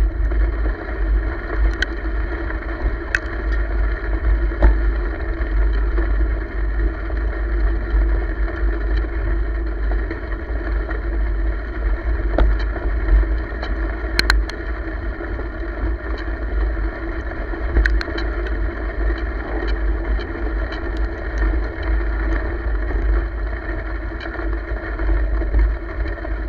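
Steady rolling noise of a ride along a gravel trail: wind buffeting the camera's microphone over a continuous drone, with scattered sharp clicks and rattles from bumps, the strongest about halfway through.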